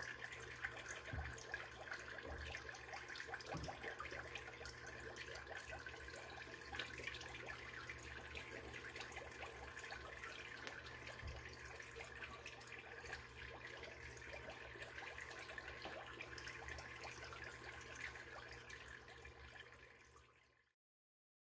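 Water trickling and splashing in an aquarium tub as its pumps and filters circulate it, with a steady hum underneath and a few soft low thumps in the first few seconds; it fades out near the end.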